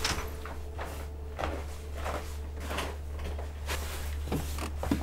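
A person moving about a derelict room: irregular knocks, creaks and scuffs of footsteps and handled wooden fittings, over a steady low rumble.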